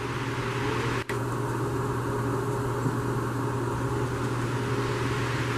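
Steady hum of a fan-driven machine with a low drone under it, dropping out for an instant about a second in.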